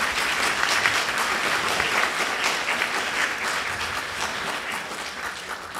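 Audience applauding: many hands clapping in a dense, steady patter that tails off slightly near the end.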